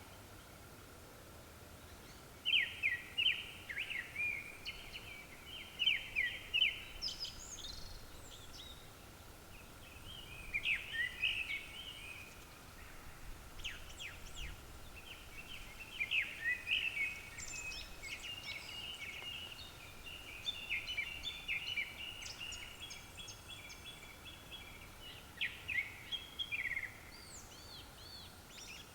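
Japanese thrushes singing: a string of short, varied whistled phrases with brief pauses, coming more thickly in the second half.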